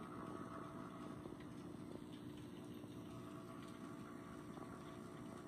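Faint, steady bubbling and hum of an aquarium's aeration: air from the airline tubing bubbling up through the water.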